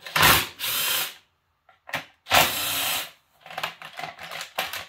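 Two short blasts of compressed air from a blow gun, about a second apart, blowing debris off a disassembled engine. A few light clicks and rattles of parts follow near the end.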